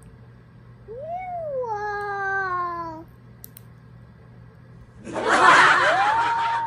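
A young child's high, wordless voice sliding up and then falling in a long wavering tone, then near the end a loud rough rushing noise with the voice gliding up again over it.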